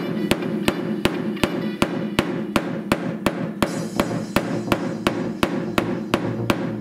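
Rubber mallet tapping on the sheet metal of the car's rear quarter panel, steady and evenly spaced at about three blows a second. The damaged area is being pulled out with a clamp and chain while it is tapped, to relax the dented metal.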